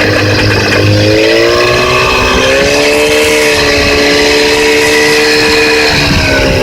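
Yamaha 30 outboard motor running, revved up over the first few seconds, held at higher speed, then let back down toward idle near the end. The motor is one said to have a knock.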